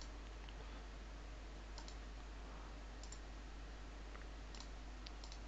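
About six faint, short computer mouse clicks, spaced irregularly, over a steady background hiss and low hum.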